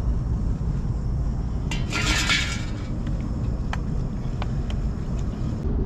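Utensil stirring and scraping noodles in a small cooking pot: a short scraping rush about two seconds in, then a few light clinks against the pot. A steady low rumble runs underneath.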